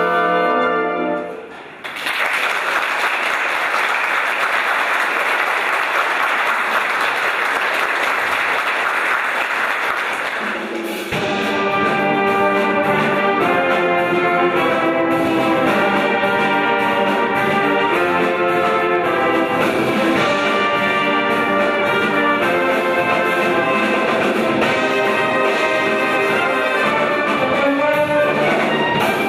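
A wind band's chord ends, followed by about eight seconds of applause. About eleven seconds in, the band starts a new piece, with brass and woodwinds playing together.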